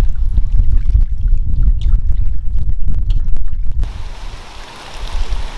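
Wind buffeting the microphone with a heavy low rumble, easing off near the end, over faint splashes of water as raw chicken meat is washed.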